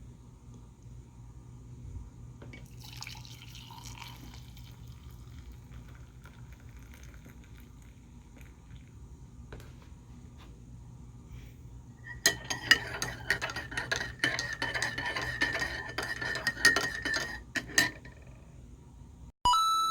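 Clinking and clattering of dishes, glassware and cutlery. The clatter comes as a quick run of sharp clinks starting about two-thirds of the way in, with a steady high tone under it.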